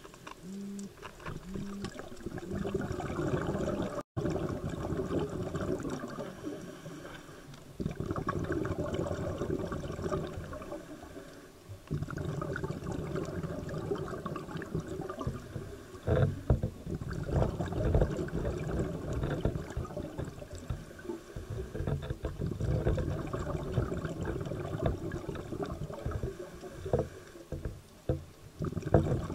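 Underwater noise of a scuba diver's exhaled bubbles gurgling and rumbling past the camera housing, coming in uneven surges with sharper bursts. The sound cuts out for an instant about four seconds in.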